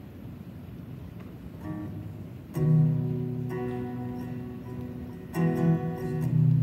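Solo acoustic guitar played slowly, chords left to ring, with a firm strum about two and a half seconds in and more strums near the end.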